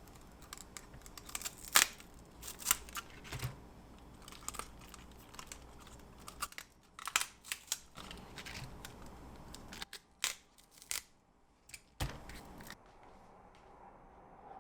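Scattered sharp clicks and knocks from objects being handled, with light rustling between them, thinning out near the end.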